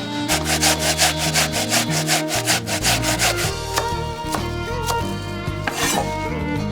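Quick, even rubbing or scraping strokes, about five a second, for roughly three seconds, then stopping. They sit over Korean traditional orchestral music featuring the piri.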